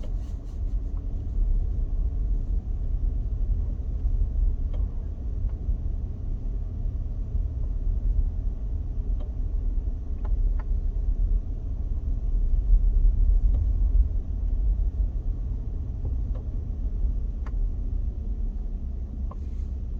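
Steady low rumble of a car driving along a paved road, heard from inside the cabin, with a few faint clicks.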